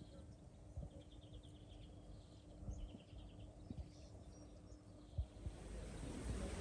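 Faint background ambience with a bird chirping in two short rapid trills, over a faint steady low hum and a few soft knocks. A hiss of background noise rises near the end.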